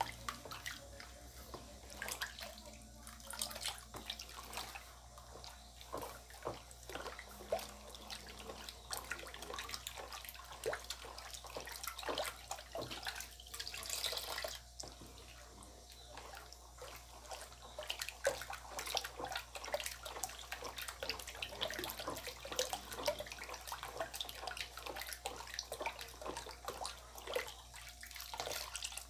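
A ladle stirring a basin of liquid homemade detergent: continuous irregular sloshing and splashing with many small clicks.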